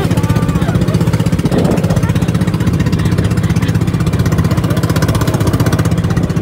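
Motorized outrigger boat's (bangka's) engine running steadily under way, a fast, even chugging.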